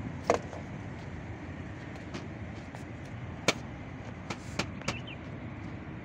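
Air filter cartridge and its cap being handled at a dredger engine's intake housing: a series of sharp knocks and clunks against the metal housing, the loudest shortly after the start and about halfway through, over a steady background noise.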